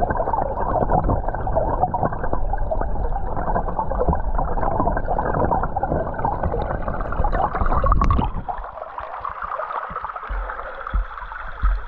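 Creek water rushing over gravel, heard muffled from under the water. About eight seconds in there is a sharp tap, and the sound turns thinner and brighter, a splashing trickle heard at the surface.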